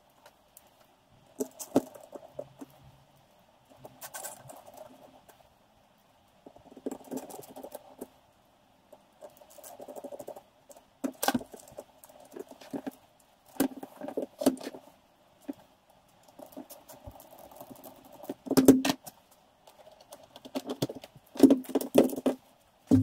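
A car stereo head unit being put back together by hand: its plastic and metal casing parts click, knock and rattle in short irregular bursts, with louder knocks near the end.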